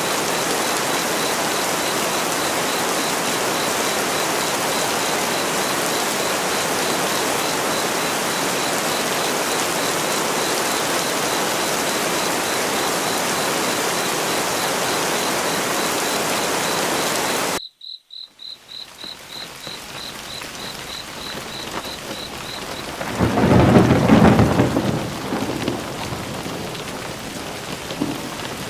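Steady heavy rain with an insect chirping in quick, regular high-pitched pulses. About two-thirds of the way in it cuts off suddenly to lighter rain. Near the end a rumble of thunder swells and fades, the loudest sound here.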